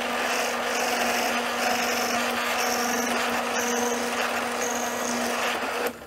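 Drill press running, its 7 mm twist bit boring into a basswood pen blank: a steady motor hum under a cutting hiss that comes and goes. The sound stops just before the end.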